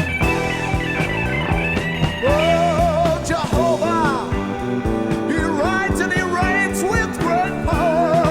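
Rock band playing an instrumental passage. A lead electric guitar solos over drums, bass and rhythm guitar, its notes bending up and down and wavering with vibrato.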